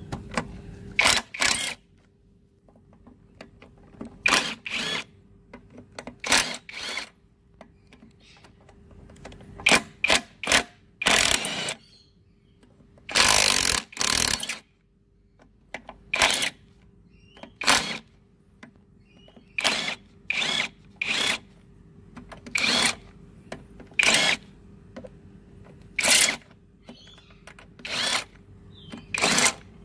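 Cordless drill driving a socket on a lawnmower engine's cylinder head bolts, run in repeated short bursts of under a second with pauses between as the head bolts are undone one by one.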